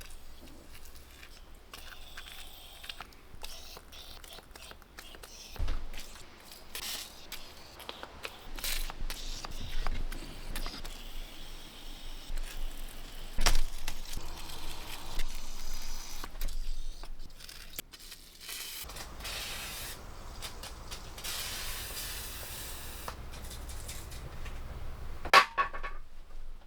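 Hand-work sounds: scattered clicks, knocks and rattles of tools, with a steady hiss lasting several seconds near the two-thirds mark.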